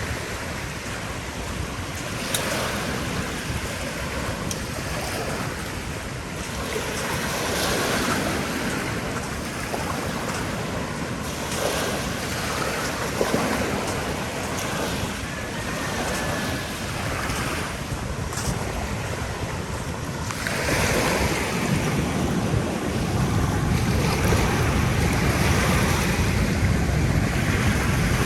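Ocean waves washing onto a beach, with wind buffeting the microphone; the wind rumble grows louder about two-thirds of the way through.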